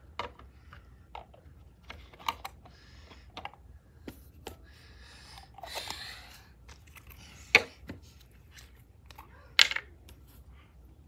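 Craft supplies handled on a desk: scattered light clicks and taps, a rustle lasting a second or two about halfway through, and two sharp knocks in the second half, which are the loudest sounds.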